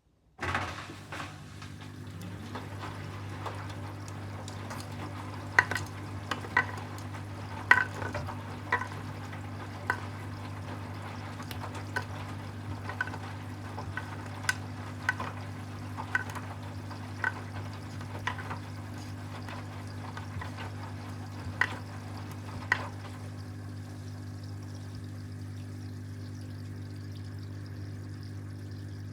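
Hoover HW411AMC washing machine at the start of its final spin: a steady hum with water sounds. Sharp clicks come about a second apart from about five seconds in and stop a little after twenty seconds.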